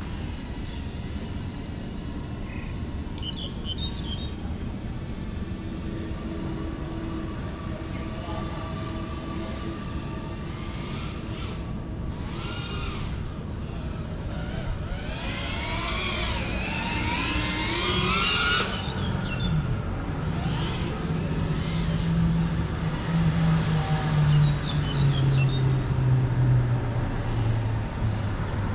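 Steady outdoor background noise, broken in the middle by a few seconds of a small FPV quadcopter's motors whining, their pitch rising and falling quickly as the throttle changes. After that, a lower hum slowly slides down in pitch for several seconds.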